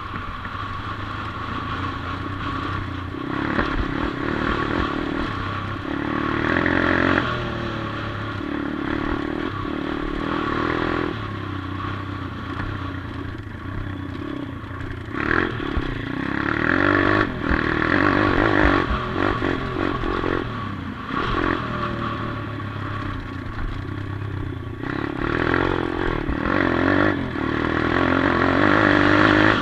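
A 140cc Atomic pit bike's single-cylinder four-stroke engine being ridden hard over a dirt track. It revs up and drops back in repeated surges as the rider works the throttle and gears. Rattling and clatter come from the bike over the rough ground.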